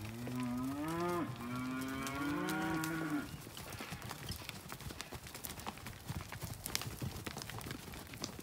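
A steer mooing once: one long call of about three seconds that rises in pitch, with a short break partway through. After it come scattered scuffs and knocks of hooves on dry dirt.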